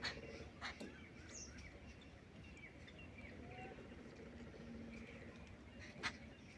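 Lovebirds chirping: faint scattered short chirps, with a few sharp, louder calls near the start and near the end, over a low steady background noise.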